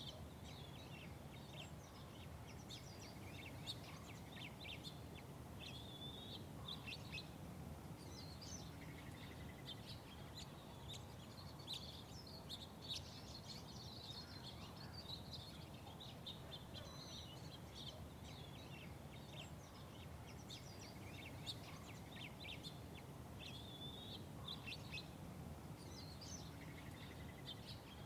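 Small birds chirping in many short, repeated calls, with a brief trill twice, over a steady low background rumble.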